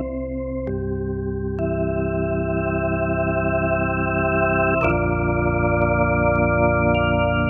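Organ sound from a Roland VR-09 keyboard playing held chords, changing chord about every one to three seconds, with a short click at some of the chord changes.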